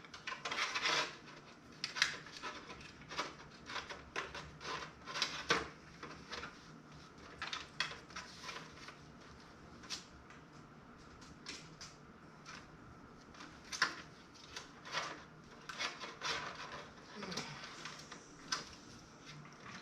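Irregular clicks, taps and rustling scrapes of hands handling PC cables and parts inside a metal case.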